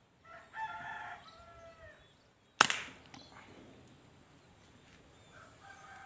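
A rooster crows in the background, then about two and a half seconds in a pump-up air rifle fires once with a sharp crack; the rooster starts crowing again near the end.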